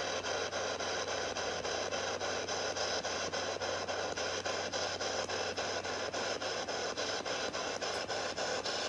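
SBox spirit box sweeping through radio frequencies: a steady hiss of static chopped by a regular click about five times a second as it jumps from one frequency to the next.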